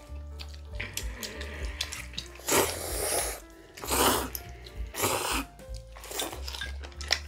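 Thin somyeon noodles being slurped, in about four short, loud bursts through the second half, over steady background music.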